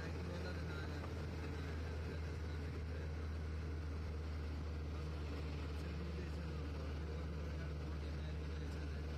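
Steady low drone of a motor vehicle's engine, with road noise from the moving vehicle. It comes in abruptly at the start and holds level throughout.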